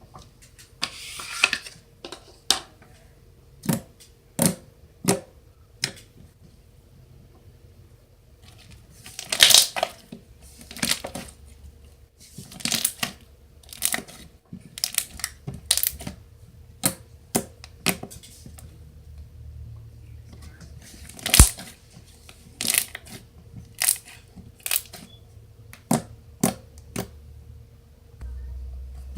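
Slime being squeezed, stretched and poked by hand, giving irregular short pops and clicks, with a few longer crackly squelches.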